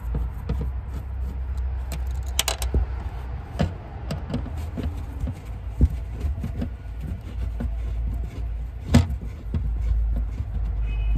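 Screwdriver turning out the screws of a car's metal fuel pump access cover: scattered small metallic clicks and scrapes, with a few sharper clicks, over a low steady hum.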